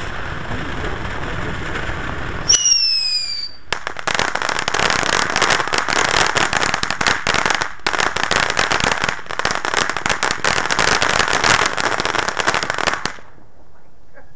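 Consumer ground fountain fireworks spraying sparks: a steady hiss, a whistle falling in pitch about two and a half seconds in, then dense crackling for about nine seconds that cuts off suddenly near the end.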